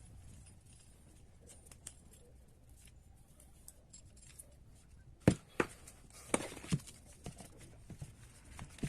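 Faint scattered ticks, then from about five seconds in an irregular run of sharp clicks and knocks of small hard objects being handled, the first knock the loudest.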